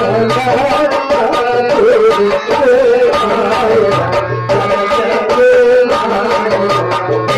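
Live music from a stage drama: a barrel-shaped hand drum played by hand in a running rhythm under a wavering melody line.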